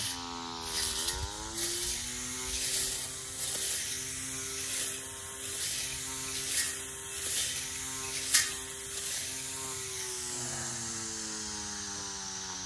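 Battery-powered weed eater with a cutting blade: its electric motor whines steadily, the pitch dipping briefly about a second in and falling a little near the end. Scattered clicks come as it cuts grass and weeds, with one sharp click about eight seconds in.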